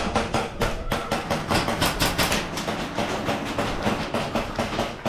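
A rapid, uneven series of sharp clicks and knocks, about five or six a second.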